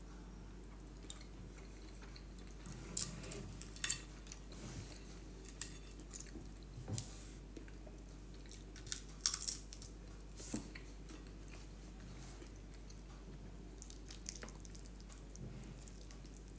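Close-up sounds of a person eating soft cheese-topped stuffed sweet potato: chewing with scattered short mouth smacks and clicks, most of them between about three and eleven seconds in, then a quieter stretch.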